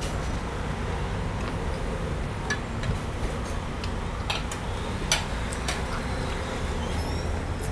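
Eating sounds: a handful of short clicks and crunches from chewing and handling grilled seafood, over a steady low rumble.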